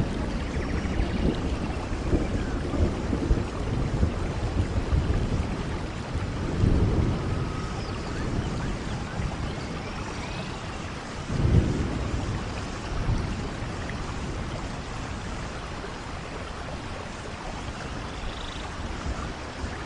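Steady heavy rain in a rainforest thunderstorm, with two low rolls of thunder, about six and eleven seconds in, the second louder.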